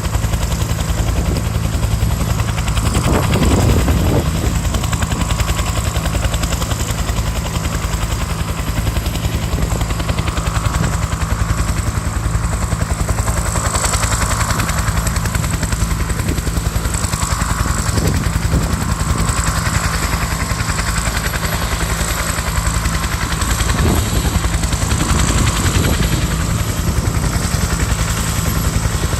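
Firefighting helicopter's rotor beating in a fast, steady chop, loud and close.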